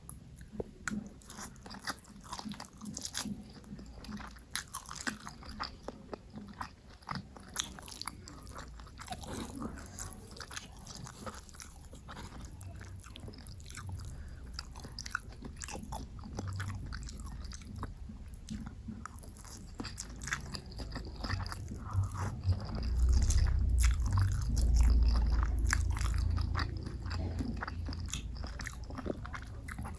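Close-miked eating: a person chewing and biting, with many small sharp crackles throughout. In the last third a low rumble swells for a few seconds and is the loudest part.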